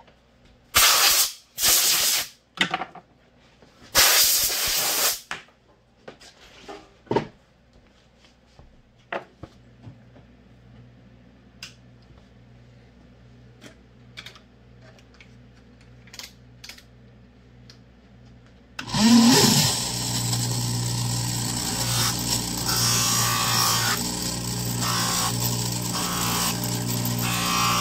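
Bench grinder starting up about two-thirds of the way in and running steadily, with a Kydex holster's edge held against its abrasive wheel. Before it starts there are a few loud short noisy bursts and scattered light clicks.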